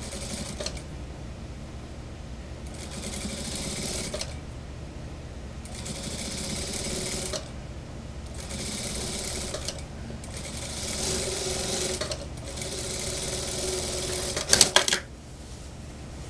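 Industrial lockstitch sewing machine stitching through suit fabric in five short stop-start runs of a second or two each, over the steady hum of its motor. Near the end comes a quick cluster of sharp clicks, the loudest sound here.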